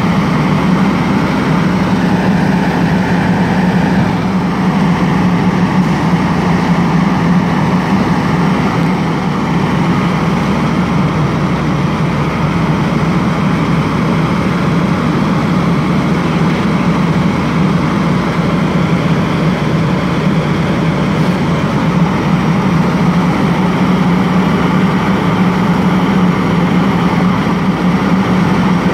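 Heavy engine running steadily, a constant loud drone with no change in pitch.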